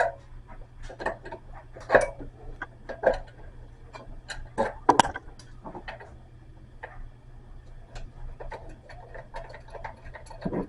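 Irregular clicks and knocks of a wrench working the faucet's mounting nuts loose under a sink, a few louder knocks among lighter taps.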